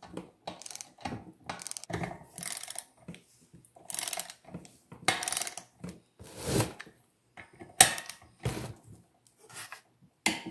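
Socket ratchet clicking in short, irregular bursts as the handle is swung back and forth, snugging down the cover bolts on a Briggs & Stratton engine one after another, with light clinks of the tool on the metal.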